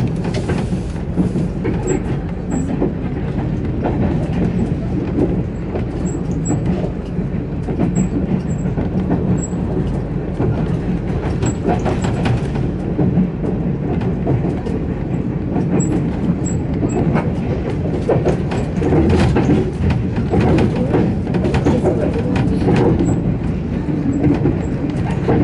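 Express passenger train running steadily on its rails, heard from inside the carriage: a continuous rumble of wheels and bogies with scattered clicks and knocks from the track.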